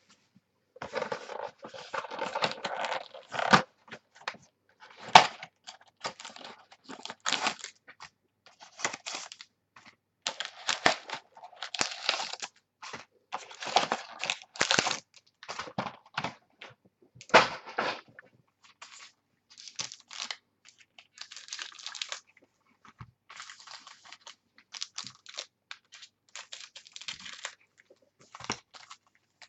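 Trading card packaging being torn open and handled: wrapper tearing and crinkling, with cardboard and cards rustling and clicking in irregular bursts.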